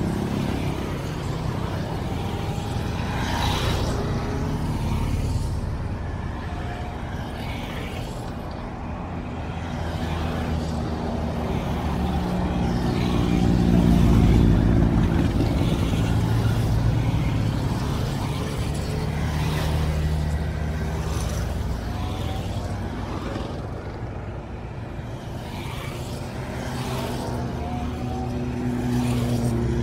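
A stream of motorcycles (big scooters, sport bikes and a cruiser) riding past one after another, the engine sound rising and fading as each bike goes by. It is loudest about halfway through, as the cruiser passes.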